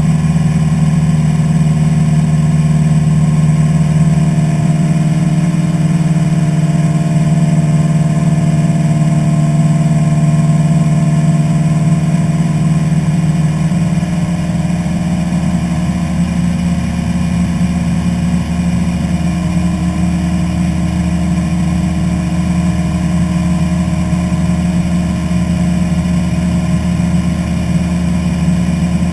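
Engine and propeller of a single-engine light airplane droning steadily in flight, heard from inside the cockpit. The engine note shifts slightly in pitch about halfway through.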